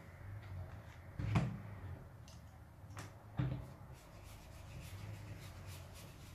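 A leather wallet being handled and rubbed while it is polished by hand, with two dull knocks as it is moved against the work surface, about a second and a half in and again two seconds later, and light rubbing and ticking in between.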